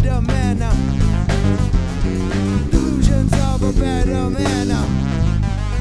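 A live band playing a hip-hop/electronic song: a busy bass guitar line and drum kit under guitar and synthesizer, with a wavering lead line on top.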